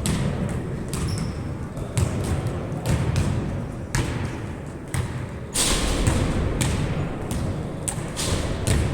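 A basketball being dribbled and bouncing on a court: irregular sharp thuds about once a second, over a low rumbling background.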